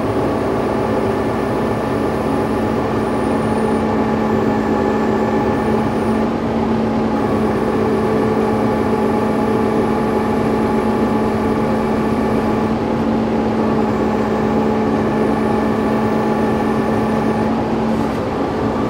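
Kubota M4 tractor's diesel engine running steadily while the front loader raises a heavy rotary tiller on pallet forks; its tone shifts slightly about a third of the way in and again past the middle.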